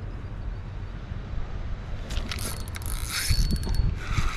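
Spinning fishing reel clicking in rapid ratcheting runs, about two seconds in and again briefly near the end, as a fish comes back to the bread bait. A low rumble lies underneath throughout.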